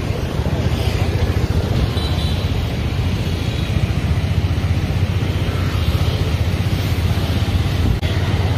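Steady low rumble of a motorbike ride: the engine running while moving along the street, with wind buffeting the microphone.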